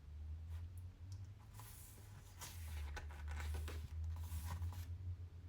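Glossy photobook pages being turned and handled, with short paper rustles and flicks, over a steady low hum.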